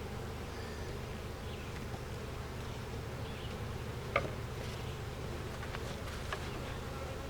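Honeybees buzzing steadily around an open hive, with a few short sharp clicks, the loudest about four seconds in.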